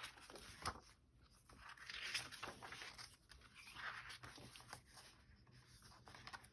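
Faint handling of paper sheets: a few soft rustles with scattered light taps and clicks.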